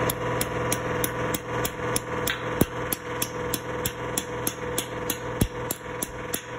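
A hammer driving a steel wedge anchor bolt down into a drilled hole in a concrete floor, through a rack upright's base plate. It makes rapid, even metal-on-metal strikes, about three a second.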